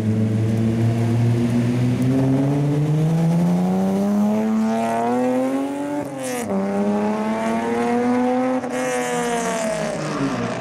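Tuner car's engine revving hard as the car accelerates toward and past, its pitch climbing steadily. About six seconds in there is a sharp crack and the pitch drops, then it climbs again and falls away near the end as the car pulls off.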